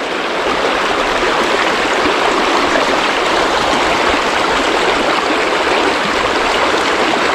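River water rushing steadily past close by, a continuous even wash of flowing current.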